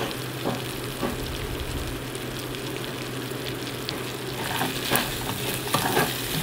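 Mutton pieces sizzling as they fry in their own fat in a metal pot, the water already cooked off, while a slotted metal spatula scrapes and clinks against the pot as they are stirred. The scraping and clinking grow busier and louder in the last couple of seconds.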